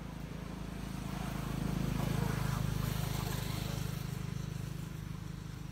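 Low engine hum of a motor vehicle, growing louder over the first two seconds or so and then slowly fading.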